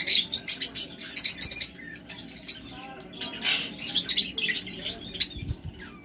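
Small parrots chirping and twittering in quick, shrill bursts, busiest in the first two seconds and again around three and a half seconds in.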